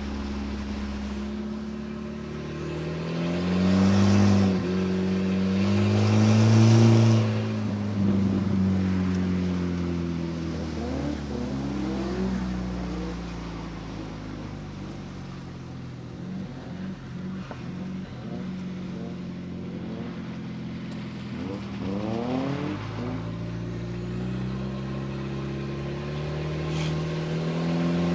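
Volvo drift car engine revving: two strong rises in revs early on, then steady running at lower revs with quick up-and-down sweeps in pitch, and the revs climbing again near the end.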